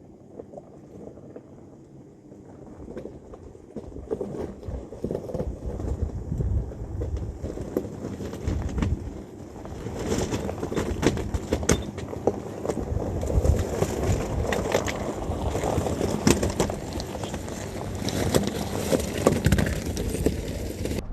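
SUV driving over a rough dirt road: tyres rumbling and crunching over gravel and rocks, with constant irregular knocks and rattles from the suspension and body. It gets louder and rougher a few seconds in.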